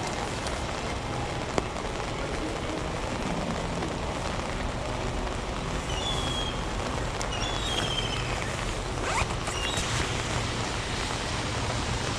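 Heavy rain falling steadily, an even hiss, with a single sharp tick about a second and a half in and a few short high squeaks between six and eight seconds in.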